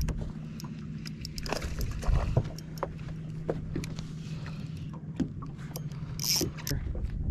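Spinning reel and rod worked against a hard-fighting hooked fish: scattered small clicks and knocks over a low steady hum that stops near the end.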